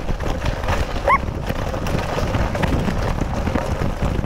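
Mountain bike rolling down a loose rocky gravel track: tyres crunching and the bike rattling over stones in a steady clatter of small knocks, with wind rumbling on the microphone. A short rising squeak about a second in.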